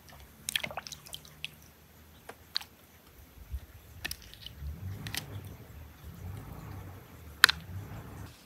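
A knife cutting and splitting ripe plums by hand: wet squishing with a series of sharp clicks, the loudest near the end.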